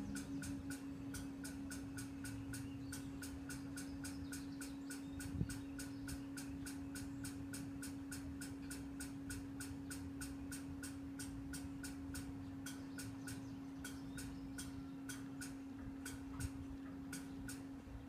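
Railroad grade-crossing bell ringing with rapid, evenly spaced strikes, several a second, over a faint steady hum. There is a single louder knock about five seconds in.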